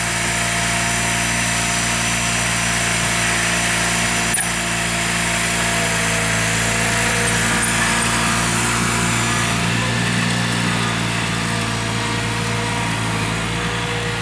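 Honda 4514 lawn tractor's liquid-cooled twin-cylinder engine running steadily as the tractor is driven off through deep snow.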